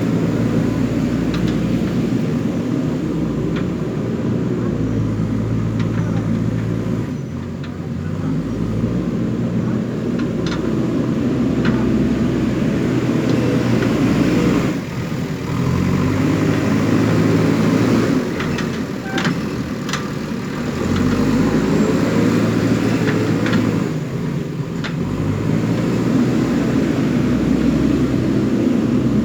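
JCB backhoe loader's diesel engine working under hydraulic load, its speed dipping and picking up again every few seconds as it digs and loads soil, with occasional sharp metallic clanks.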